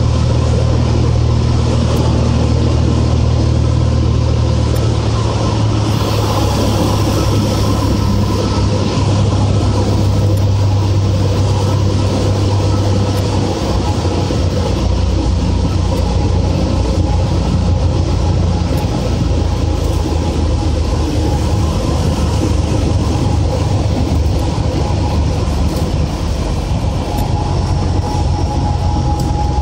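Cessna 182's piston engine and propeller droning inside the cabin with wind noise, on final approach to landing. The low drone steps lower about six seconds in and again about halfway through, as power is pulled back for landing.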